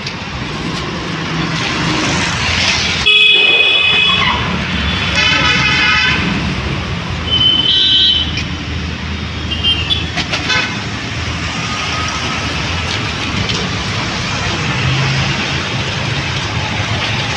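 Steady road traffic noise with repeated vehicle horn toots: about four short blasts in the first ten seconds, one of them held for over a second.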